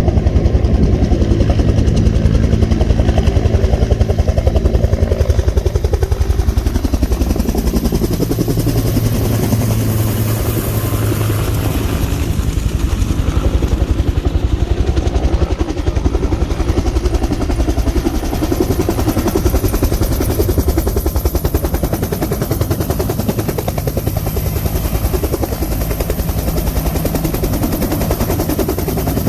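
Firefighting helicopter's rotor chopping rapidly and evenly at close range, loud and continuous, with a steady low engine hum under it.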